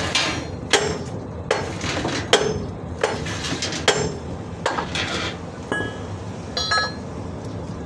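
Hammer blows on steel at a truck's front steering linkage, one sharp ringing strike about every 0.8 seconds, knocking a tie rod end loose for removal. The blows stop about five seconds in, followed by two lighter metallic clinks.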